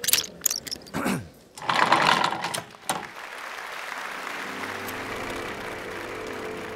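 Sound effects for an animated logo: quick clicks, a falling sweep about a second in and a short rattling burst, then a steady mechanical whirring with a low hum from about four seconds in.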